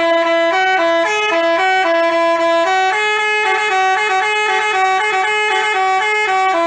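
Telolet horn, the basuri-type multi-tone bus horn, playing a quick tune of stepped notes, a new note every quarter second or so. About three seconds in, the tune moves to a higher run of notes.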